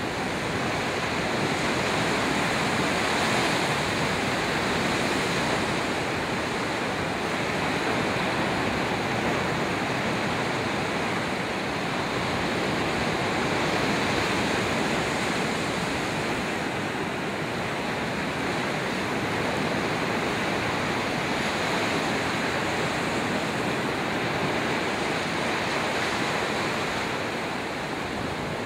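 Ocean surf: small waves breaking and washing through shallow water, a steady rushing that swells and eases slowly.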